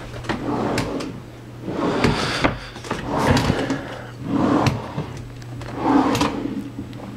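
Chest-of-drawers drawers being slid open and pushed shut one after another, about five scraping slides each ending in a knock.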